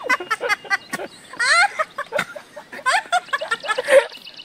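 Several people laughing in short, high-pitched bursts as a man reacts to swallowing raw tamilok (shipworm), with a loud burst of voice about four seconds in.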